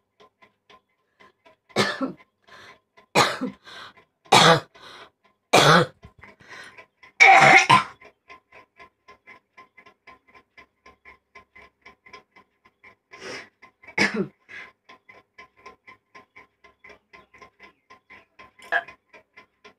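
A person coughing: five loud coughs over the first eight seconds, the last the longest, then three quieter coughs later on. It is coughing forced hard enough to bring on retching.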